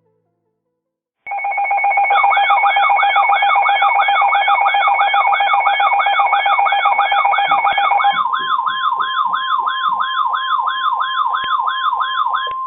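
Emergency Alert System attention tones: a low and a high steady tone sound together with a siren-like electronic wail that rises and falls about two and a half times a second. About eight seconds in, the steady pair gives way to a single steady tone while the wail carries on, announcing a severe thunderstorm warning.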